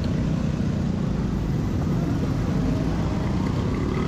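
Motorbike on the move: a steady low rumble of engine, wind and road noise, with no break or change.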